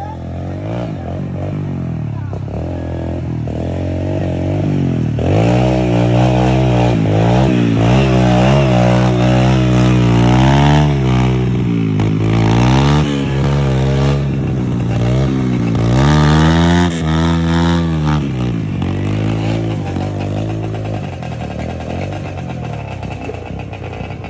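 A motorcycle engine, which the rider takes for a Honda Nova two-stroke, revving up and down again and again. It grows louder to a peak around the middle, then fades somewhat.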